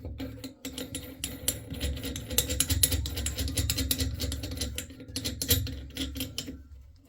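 Rapid, dense mechanical clicking from a hand tool being worked while a new tap is fitted, starting about a second in and stopping near the end, over a steady low hum.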